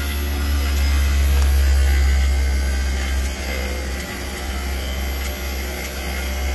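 Failing inverter compressor in a Daikin Rebel package VRV unit running with a loud, low hum that swells for a second or two and then eases. It is acting up, a sign that something is mechanically wrong inside the compressor.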